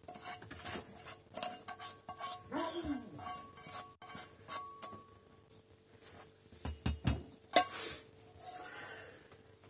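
Silicone spatula scraping sautéed onions out of a frying pan into a saucepan, a quick run of short scrapes and taps against the pan, then a few louder knocks about seven seconds in.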